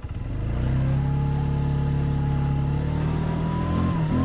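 ATV engine revving up from idle over the first second, then running steadily at higher revs, with a faint whine rising slightly in pitch above it.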